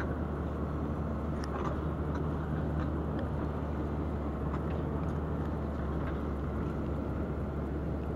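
Steady low rumble of an excavator's diesel engine running, with a few faint clicks from handling.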